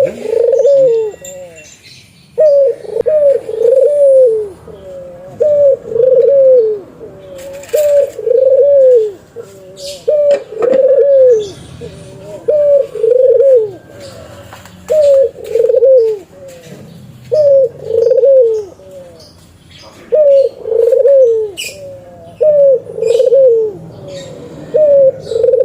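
Dove cooing: a loud, repeated phrase of two or three arching coos, about one phrase every two seconds.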